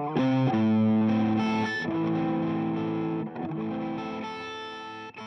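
Electric guitar played through a King of Tone–style dual overdrive pedal into a Fuchs ODS amp simulation, with a few overdriven notes and chords. The last notes ring out and fade.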